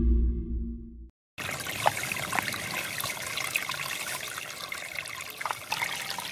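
Shallow water trickling and splashing as it runs through grass and reeds in a small channel, with scattered small splashes. Electronic music fades out in the first second before the water starts.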